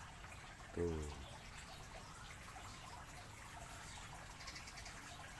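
Quiet, steady background hiss with a few faint ticks; one short spoken word about a second in.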